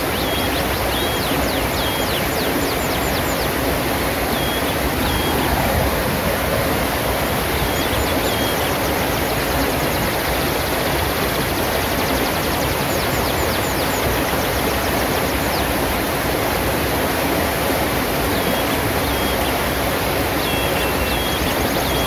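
Shallow river rushing steadily over boulders and small cascades, with small birds chirping in short high calls every few seconds.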